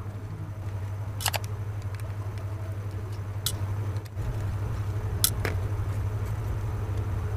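A small screwdriver working the screws out of an AC remote's circuit board, with three short sharp clicks of metal and plastic spread across a few seconds. A steady low hum runs underneath.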